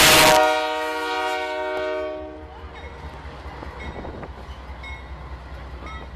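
Diesel locomotive of the Canadian Pacific Holiday Train sounding its air horn, one blast of about two and a half seconds that starts with a sudden very loud burst. The train then rolls past with a lower steady rumble.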